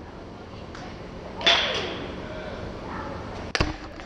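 Two sharp impacts in softball batting practice. About a second and a half in comes a loud crack with a brief metallic ring, and about two seconds later a sharper, shorter knock.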